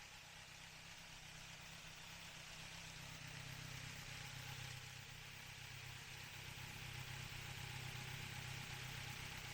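Kawasaki Z900's 948 cc inline-four engine idling steadily through an IXIL aftermarket silencer, faint and slowly growing a little louder.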